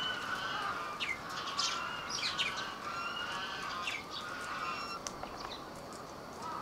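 Small birds chirping: many short, quick chirps that sweep down in pitch, scattered and overlapping, thinning out near the end.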